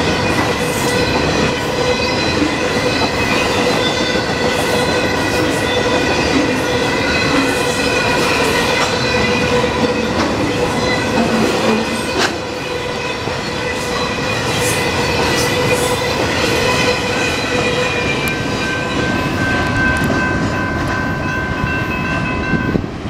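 Freight cars of a long BNSF intermodal train rolling past, steady rumble of wheels on rail with a high steady squeal over it. A sharp click about halfway through, and the squeal stops near the end as the last car goes by.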